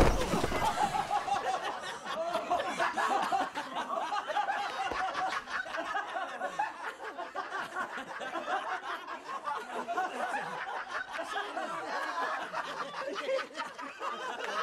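A loud thump at the very start as a mechanical high-five arm slams sacks of flour into a man, then several men laughing hard.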